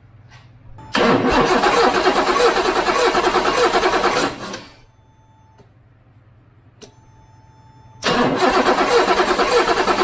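Starter cranking the 1984 BMW 733i's 3.2-litre inline six in two bursts of about three and a half seconds with a short pause between, the engine turning over evenly without firing. It will not start for lack of spark: the coil gives only one weak spark. A single click sounds in the pause.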